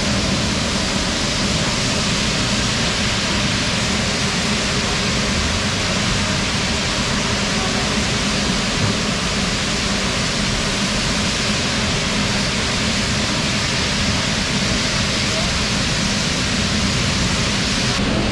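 Chicken pieces deep-frying in a large wok of bubbling oil: a loud, steady sizzle.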